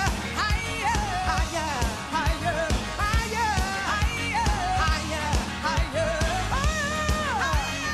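Live band music with voices singing over a steady drum-kit beat.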